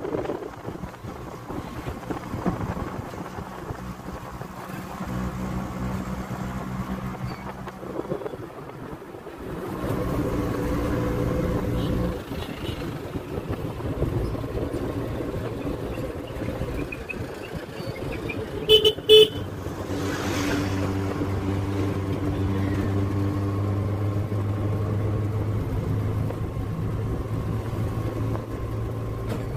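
Auto rickshaw's engine running in traffic, its pitch dropping and rising a few times. About two-thirds of the way in, a vehicle horn gives two short, loud toots.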